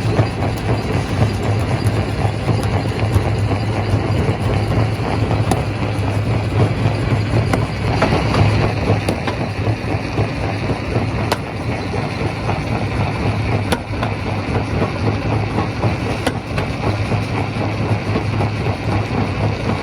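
Quarry rock crusher running steadily with a strong low hum and a dense grinding clatter, broken by a few sharp knocks.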